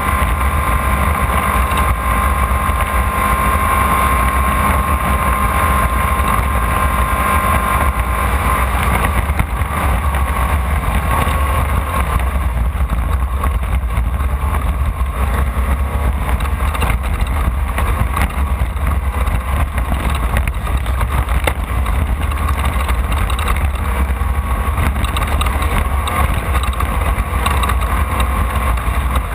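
Off-road race car engine running hard under load, heard onboard, with a high whine through the first eight seconds or so that then fades.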